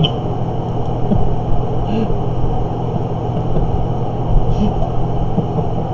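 Steady low mechanical hum with a rushing noise underneath, room background like a fan or air conditioner, with a couple of faint brief murmurs.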